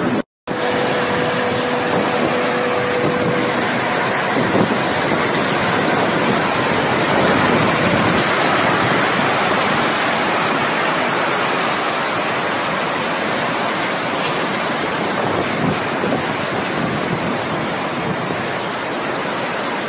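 Tornado storm wind blowing hard across a phone microphone: a steady, dense rush of noise, with a brief drop to silence right at the start.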